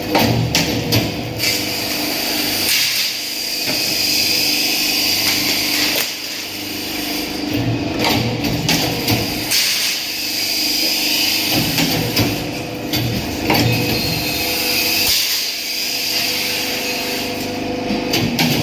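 Metal-fabrication workshop noise: power tools running, with irregular hammer-like knocks on metal.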